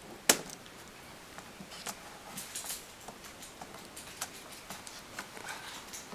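Plastic clicks and light ticks of a Toshiba Satellite laptop keyboard being shifted and eased free of the retaining tabs in its chassis, with one sharper click just after the start and scattered small ticks after it.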